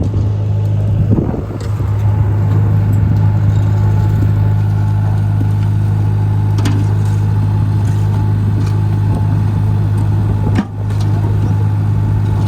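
An engine of road-construction machinery running at a steady idle: a loud, even low drone that dips briefly near the end.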